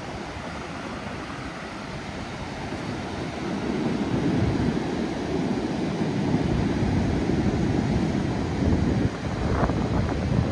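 Wind buffeting the microphone over the wash of surf on the beach, a steady rushing that grows louder a few seconds in.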